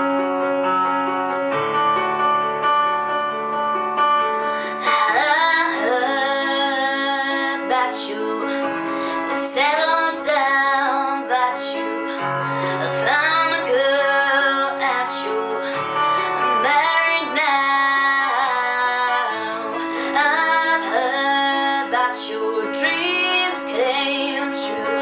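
A young woman singing a slow ballad over piano chords. The piano plays alone at first, and her voice comes in about five seconds in, with held, wavering notes.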